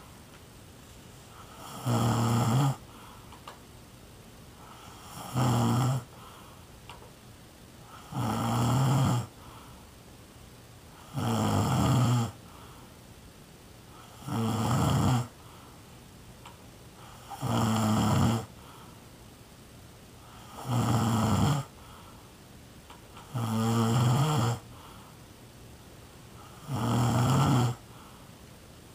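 A sleeping person snoring in a steady rhythm: nine snores about three seconds apart, each about a second long.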